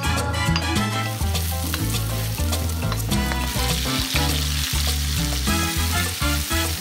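Tomato pieces sizzling as they fry in oil in a pan, stirred with a wooden spatula; the sizzle is loudest in the middle. Background music with a steady bass line plays underneath.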